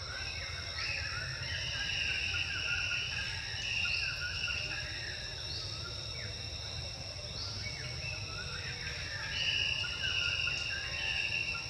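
Insects trilling in a steady, high, many-toned drone, with short wavering calls coming and going below it and a low rumble underneath.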